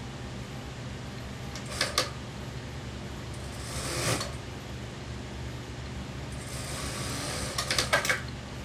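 Cloth rustling and a few sharp clicks as suit lining fabric is shifted and arranged at an industrial sewing machine, over a steady low hum. Two clicks come about two seconds in, a swell of rustling just before four seconds, and a longer rustle ending in a quick cluster of clicks near the end, the loudest of them.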